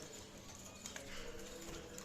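Budgies chirping and chattering, with short scattered chirps and clicks.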